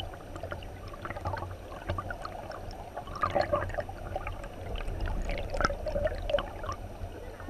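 River water flowing over rocks, heard from a camera submerged in the stream: muffled gurgling and bubbling with many small scattered clicks over a low rumble.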